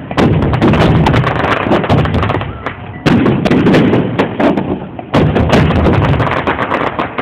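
Fireworks display: a barrage of booming shell bursts with dense crackling and popping. Fresh volleys of bangs hit near the start, about three seconds in and again about five seconds in.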